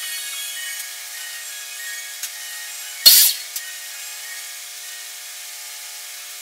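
Hand work on a plywood panel: a steady rubbing, scraping noise against the wood. About three seconds in it is broken by one loud, short burst of hiss.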